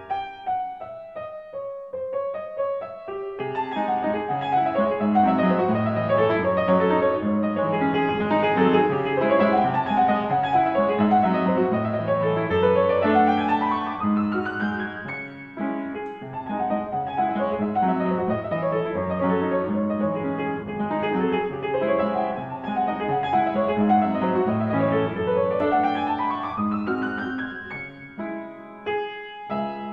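Piano music with flowing, rippling notes, softer for the first few seconds; twice a quick run sweeps upward, about halfway through and again near the end.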